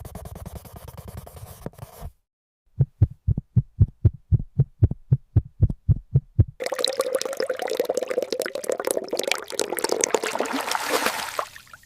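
A rapid, even run of low heartbeat-like thumps, about three to four a second for roughly four seconds. Then a denser crackling, bubbling noise like liquid for about five seconds, stopping shortly before the end.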